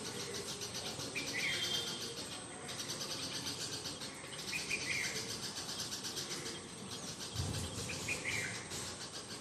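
Birds and insects: a continuous fast, pulsing insect trill, with a short bird call about a second in, again near the middle and again near the end.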